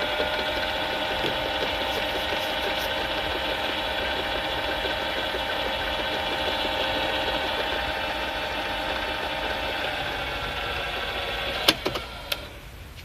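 Victor HR-S10 portable video cassette recorder's tape transport running: a steady motorised whir with several even tones. Near the end it slows slightly and stops with a few sharp mechanical clicks.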